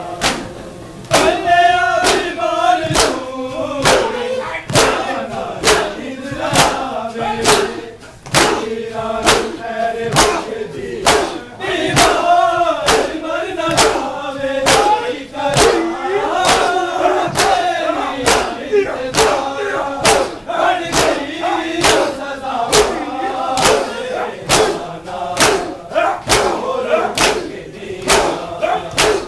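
A group of men chanting a noha in unison, over a regular beat of hands slapping bare chests in matam.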